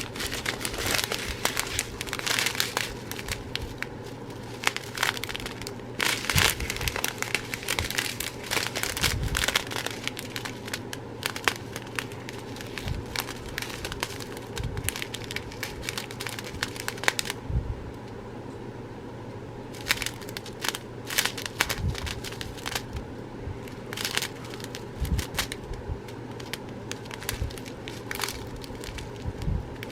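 Small plastic bags of diamond painting drills crinkling as they are handled and turned over, with irregular crackles and clicks and a brief lull partway through.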